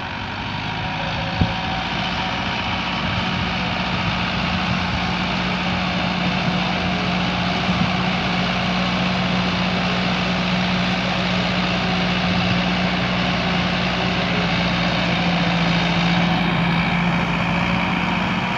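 Farm tractor's diesel engine running steadily under load while it drives a rotavator tilling the soil, growing a little louder as the tractor comes closer.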